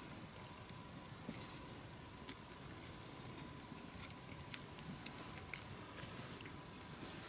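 A person chewing food, with scattered small sharp clicks over a faint hiss and a faint steady high tone.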